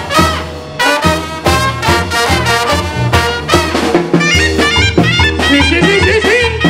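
Mexican banda brass band playing a dance tune live: trumpets and trombones over a deep, steady bass line and regular drum beats, with a lead line winding up and down in the second half.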